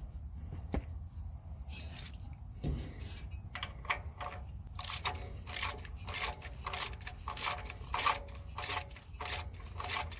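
Metal hand tools clinking and clicking, with a dense run of quick repeated clicks from about halfway through.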